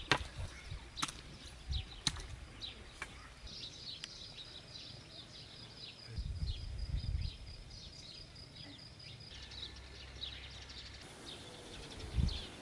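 A shovel striking wet soil about once a second for the first few seconds, over birds chirping. In the middle, one bird keeps up a fast run of high repeated notes for several seconds.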